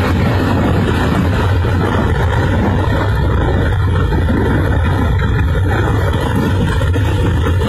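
Water being discharged at Tarbela Dam during an emergency release: a loud, steady rushing noise with a heavy low rumble.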